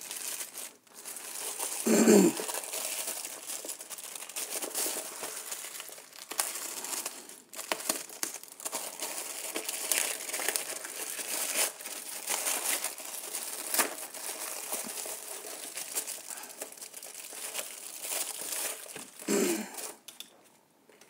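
Mail package wrapping being crinkled and torn open by hand, a continuous crackling rustle, with two short louder, duller sounds about two seconds in and near the end.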